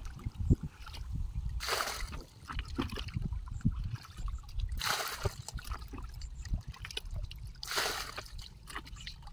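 Muddy water scooped with a plastic bucket and poured into a woven basket sieve to strain out fish, splashing in three short pours about three seconds apart, with sloshing in between.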